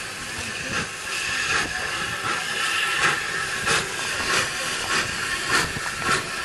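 Steam locomotive moving slowly, giving a steady hiss of steam with a chuff about every two-thirds of a second.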